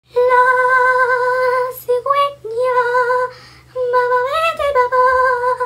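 A young woman's voice humming a slow wordless tune in long held notes, phrased in lines of about a second each, with one note sliding up and back down near the end.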